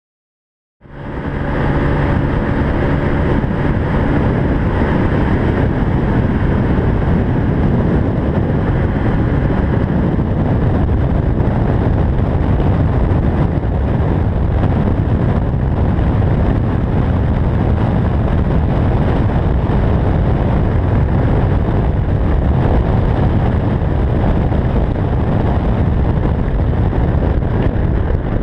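Onboard sound of a SYM GTS 125i scooter riding at speed: wind rushing over the microphone over the hum of its single-cylinder 125 cc engine. It starts abruptly about a second in, with a faint steady engine tone audible for the first few seconds before the wind noise covers it.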